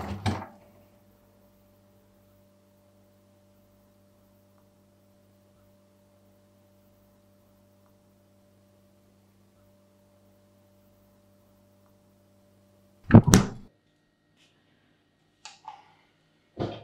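A dull knock right at the start and a louder one about thirteen seconds in, with a faint steady hum between them. A few light clicks and another knock come near the end.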